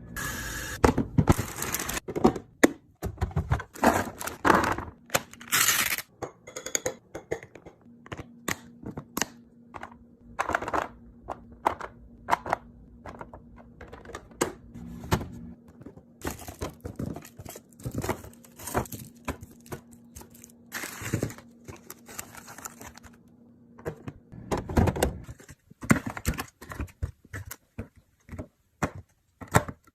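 Food containers and packaging being handled and set down while a fridge is organized: a busy run of clicks, knocks and thunks, with some crinkling of packaging.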